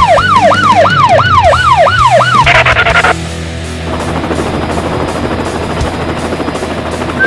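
Electronic police siren sounding in rapid falling sweeps, about three a second, followed about two and a half seconds in by a short harsh buzz; then a quieter steady music bed.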